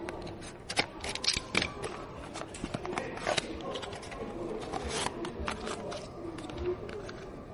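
Irregular sharp clicks and taps of hard parts being handled, some in quick runs, over a faint low wavering tone that comes and goes.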